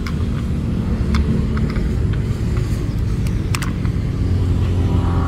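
Car engine running: a steady low rumble, with a few light clicks over it.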